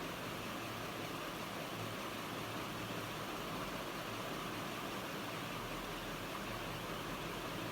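Electric fan running steadily: an even whooshing air noise with a faint low hum, unchanging throughout.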